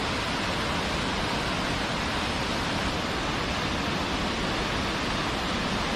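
Steady rushing of falling water from a mountain waterfall or torrent, an even noise with no breaks, starting suddenly at a cut.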